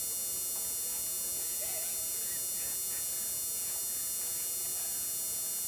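Steady hum and hiss from an old camcorder recording, with no clear event in it. A faint, short wavering sound comes about two seconds in.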